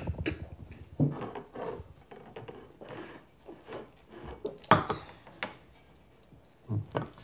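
Irregular light knocks and clatter of tableware on a wooden table as a child eats and drinks from a plastic cup. The sharpest knock comes a little before five seconds in.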